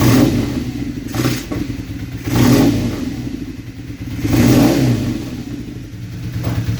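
Kawasaki KZ440 air-cooled parallel-twin motorcycle engine idling, with the throttle blipped about four times so the revs rise briefly and fall back.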